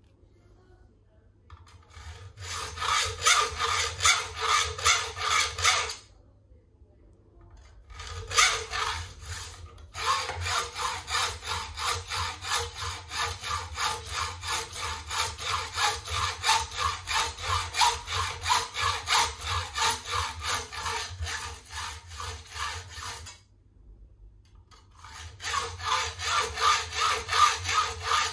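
Hand hacksaw cutting a brass strip clamped in a vise: rhythmic back-and-forth rasping strokes, about two to three a second, in runs broken by short pauses, the sawing starting about two seconds in.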